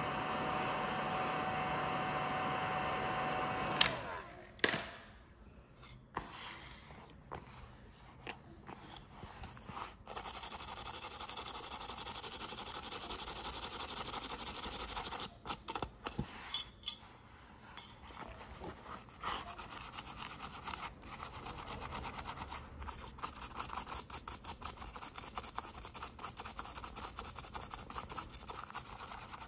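A small motor runs steadily, then cuts off with a sharp click about four seconds in. After that comes handwork: scraping and a few clicks, a steady stretch of rubbing, and quick repeated rubbing strokes in the last third.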